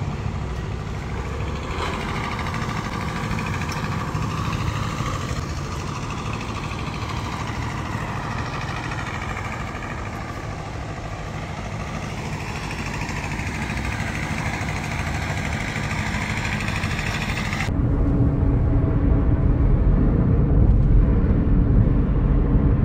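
Maruti Ignis on the road: steady engine and tyre noise that slowly rises and falls in pitch. About 18 seconds in it changes abruptly to a louder, deeper rumble.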